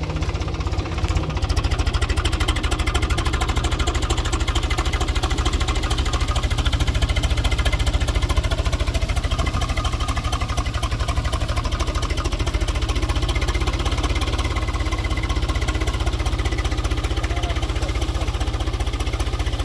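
Farm tractor's diesel engine running steadily with a fast, even beat while the tractor, stuck in wet sand, tries to drive out on its rear cage wheels.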